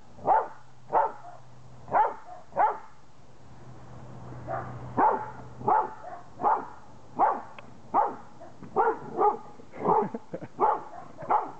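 Black Labrador barking repeatedly in short, sharp barks, about one or two a second, with a pause of about two seconds partway through.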